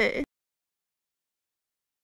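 The last syllable of a woman's spoken word, cut off abruptly about a quarter second in, then dead digital silence.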